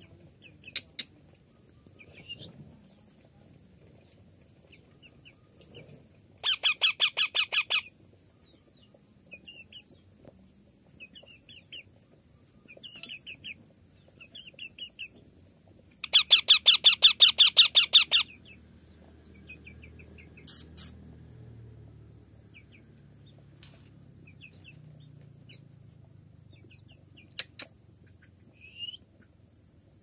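Indian ringneck parakeet chick calling: two bursts of rapid repeated calls, about seven a second, one about six seconds in and a longer one about sixteen seconds in, with scattered short chirps between them.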